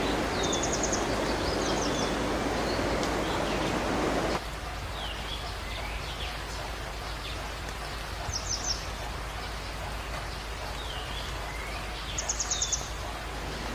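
Steady rush of running water with birds calling over it: short swooping notes and, three times, a brief rapid trill. The water noise drops sharply about four seconds in.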